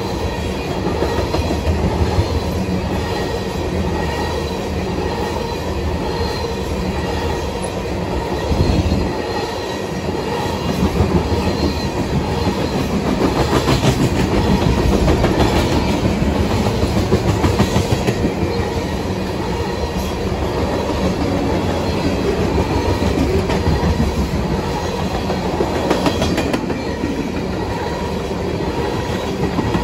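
Freight train of oil tank cars rolling past, their steel wheels clattering steadily over the rail joints.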